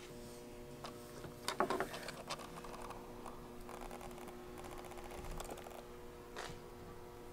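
Small clicks and ticks of hand tools and small bow parts being handled while the cord of a limb-driven arrow rest is fitted on a compound bow, with a louder rattle about a second and a half in. A steady hum sits underneath.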